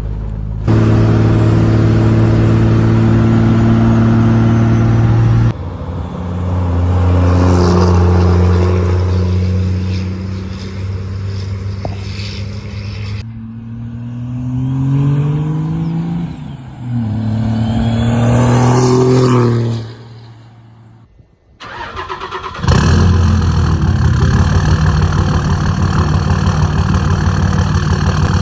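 Several cut-together clips of a diesel truck engine running steadily and revving. Its pitch climbs and then falls away in the middle, and the sound drops off briefly about three quarters of the way through.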